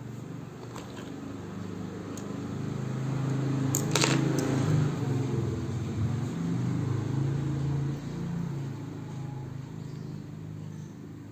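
Low mechanical hum that swells for several seconds and then eases off, with one sharp click about four seconds in.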